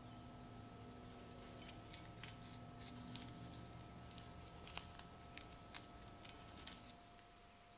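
Faint scratchy clicks and rustles of a work-gloved hand turning a rust-crusted Mosin–Nagant socket bayonet, glove fabric rubbing on the crusted metal, over a faint steady hum. The clicks stop about a second before the end.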